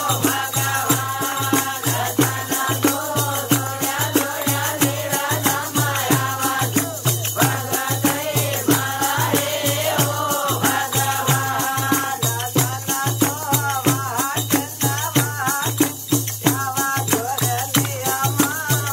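Devotional folk bhajan: a man sings a wavering melody into a microphone over a steady hand-drum beat of about two to three strokes a second, with a fast shaking rattle going all the way through.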